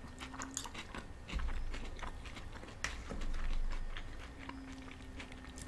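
Close-up chewing of a spoonful of tabbouleh salad, with scattered small clicks of metal spoons against plastic containers.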